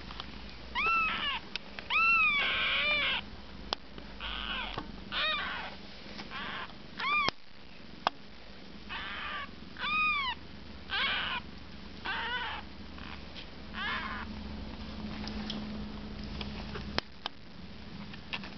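Eight-day-old Siamese kittens mewing: a run of short, high-pitched mews that rise and fall in pitch, about one a second, some harsher and squeakier, thinning out in the last few seconds. A couple of sharp clicks come in the middle.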